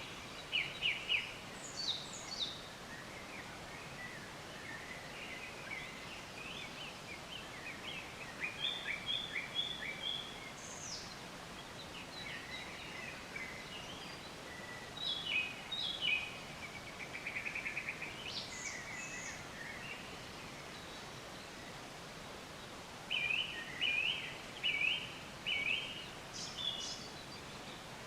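Several songbirds singing against a steady background hiss: bursts of rapid trills, clusters of short repeated notes and high falling whistles, with quiet stretches between phrases.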